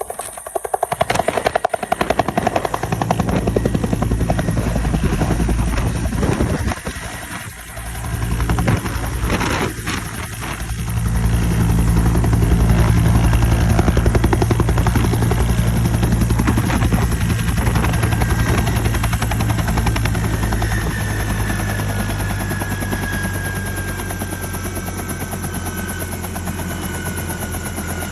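Helicopter flying close by, its rotor beating rapidly over a steady low engine hum. It grows louder about eleven seconds in, then slowly fades, with a thin whine falling in pitch over the last several seconds.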